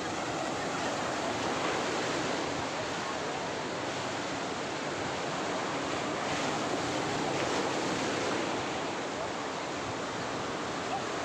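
Ocean surf: a steady wash of waves, with some wind on the microphone.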